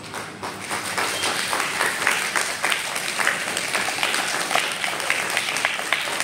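A group of preschool children clapping, dense and irregular applause that holds steady throughout.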